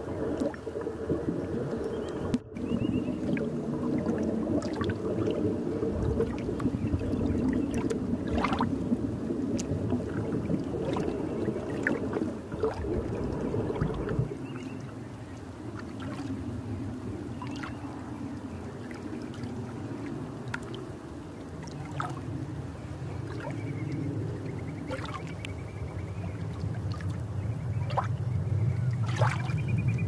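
Underwater ambience: a steady low rush of water with scattered sharp clicks. About halfway through the sound shifts to a quieter, deeper rush.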